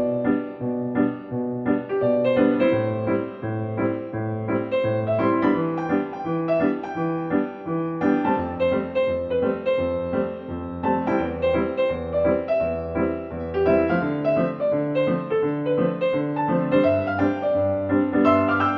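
Background music: solo piano playing a gentle melody over chords.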